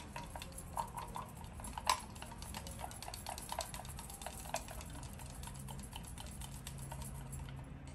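A wooden stirring stick clinks and scrapes against the inside of a small glass jar as paint is stirred, in an irregular run of light clicks and taps.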